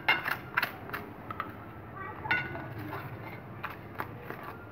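Spoon tapping and scraping against a ceramic plate as melted butter is spread over a naan: several light, sharp clicks, the loudest right at the start.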